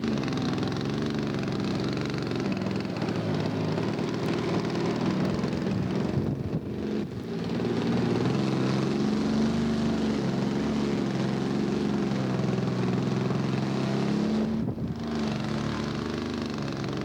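Model aircraft glow engine and propeller running steadily, with two brief dips in the sound.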